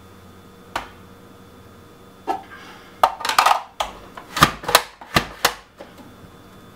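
Pampered Chef mandoline slicer worked by hand to slice lemon ends: a plastic click about a second in, another a little later, then a quick run of sharp clacks and slicing swishes for about three seconds as the plunger is pushed down through the blade.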